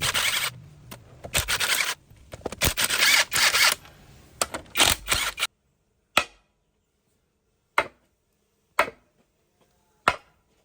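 Workshop noise from work on metal parts. Rapid scraping and clattering runs for about five seconds, then stops abruptly, followed by four sharp single knocks about a second apart.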